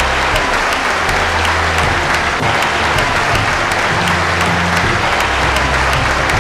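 Audience applauding, dense and steady, over the low bass line of a music track playing through the hall's speakers.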